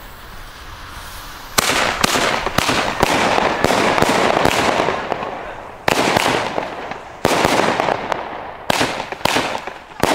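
Small consumer firework battery (cake) firing: the first shot comes about one and a half seconds in, then a fast run of shots follows, each bursting into a crackling spray that fades away. A few more shots come spaced a second or so apart near the end.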